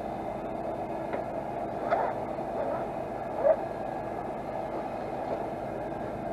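Steady engine hum made of several even tones, with a couple of faint brief sounds about two and three and a half seconds in.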